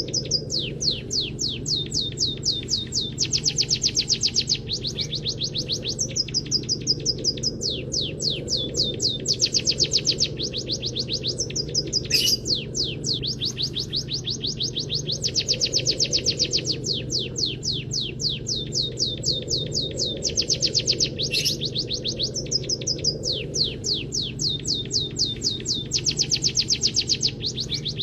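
Songbird training recording of peking and emprit kaji munias, filled with canary song: rapid high trills in phrases of two to three seconds, one after another, over a steady low hum.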